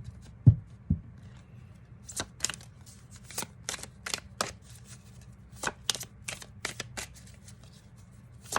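Tarot cards being shuffled by hand: irregular crisp flicks and snaps of the cards, with two low thumps about half a second and a second in.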